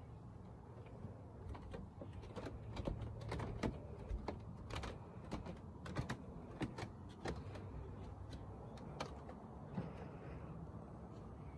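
Footsteps and creaks on wooden deck boards: irregular light knocks, about two a second, over a low steady rumble. The knocks thin out near the end.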